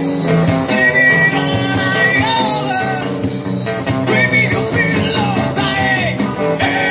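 Music: a song with a singing voice over guitar accompaniment, playing continuously.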